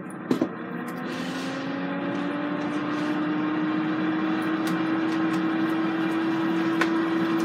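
Power XL air fryer's fan starting up after being set for a cook at 400 degrees: a hum that rises slightly in pitch and grows louder over the first few seconds, then runs steady. A couple of light clicks come just before it starts.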